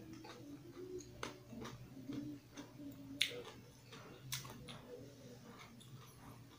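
Close-miked chewing and eating: a run of small wet mouth clicks and smacks, with a sharper click about three seconds in.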